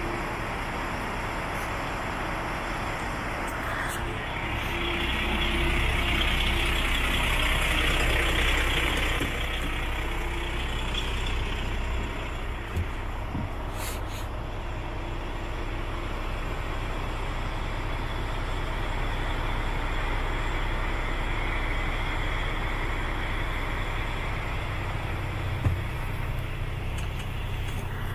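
Truck's Paccar MX diesel engine idling with a steady low hum. About four seconds in, a louder hiss comes in for around five seconds, and there are a couple of light knocks later on.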